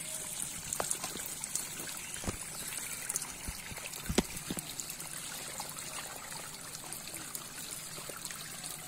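Water trickling steadily through a bamboo fish-trap screen, with scattered small ticks and two soft knocks about two and four seconds in.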